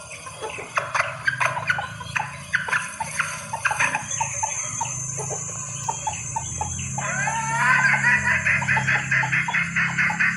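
Junglefowl hen clucking, a hen's call to draw males when she is ready to mate. Short scattered clucks give way, about three-quarters of the way in, to a faster, louder run of rising clucks, about five a second. A steady high whine runs through the middle.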